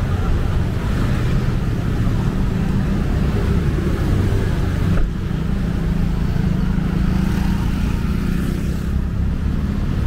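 Steady city road traffic, cars and motorcycles running past, with a short knock about halfway through.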